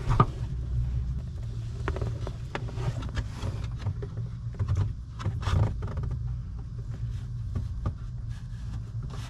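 Scattered light clicks and rustling as plastic vacuum line is worked by hand through a hole under the dashboard, over a steady low hum.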